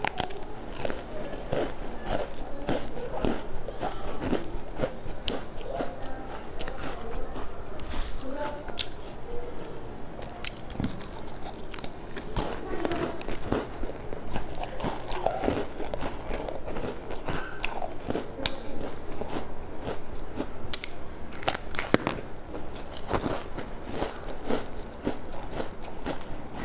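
Close-miked biting and chewing of a thin, dry cracker biscuit: a steady run of sharp, irregular crunches and crackles as it breaks up in the mouth.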